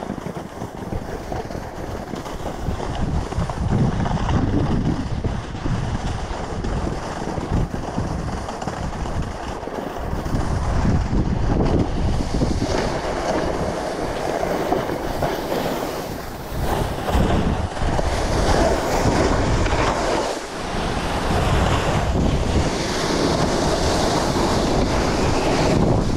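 Snowboard running fast over soft, sun-cupped spring snow, its base and edges scraping and chattering across the bumps, with wind rushing over the microphone. The noise rises and falls with the turns.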